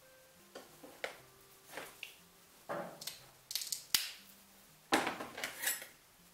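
Mosaic tesserae being cut with metal tools: a string of sharp snips and cracks at irregular intervals, loudest in the second half.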